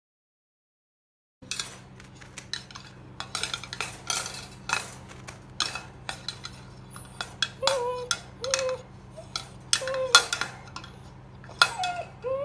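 Siberian husky puppy clattering and banging its food bowl against the wire bars of its crate, over and over at an uneven pace, after about a second and a half of silence. From about halfway through, short whines with falling pitch come in among the clatter.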